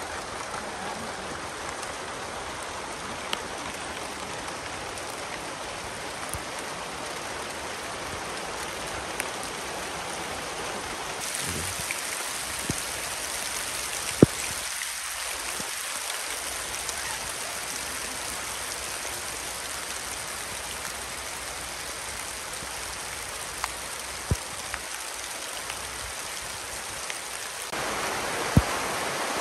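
Steady rain falling, an even hiss with scattered sharper drop ticks. The hiss brightens about a third of the way in and grows louder near the end.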